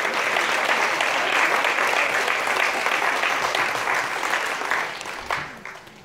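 Audience applauding with dense clapping that thins out and dies away about five seconds in, ending in a few last single claps.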